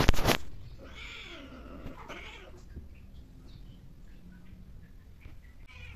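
A sudden loud burst at the very start, then a cat's falling yowl about a second in and a shorter second cry just after. These are the cries of a queen in heat as the pair break apart after mating.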